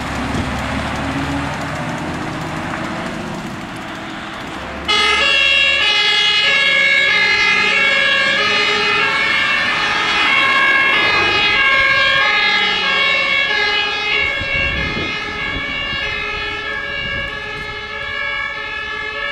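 Fire-service swap-body truck (WLF) driving off with its engine running. About five seconds in, its two-tone siren (German Martinshorn) switches on abruptly, alternating high and low tones, and slowly grows fainter as the truck moves away.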